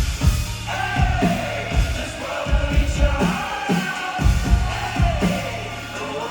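Live band music at concert volume: heavy kick-drum hits about every half second over a steady bass, with a sustained melodic line that bends in pitch above them.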